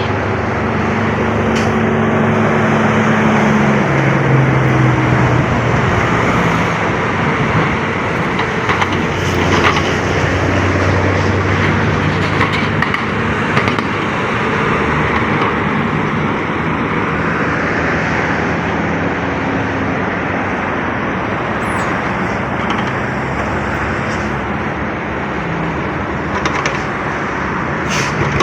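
Heavy diesel truck engine running loud, its note shifting up and down, over a steady rush of road noise.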